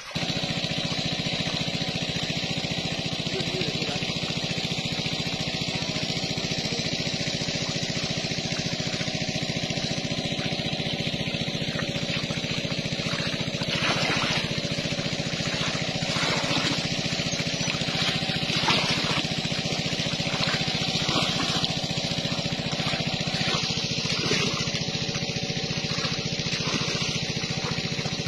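Small engine running steadily at a constant speed, starting abruptly and holding an even level throughout.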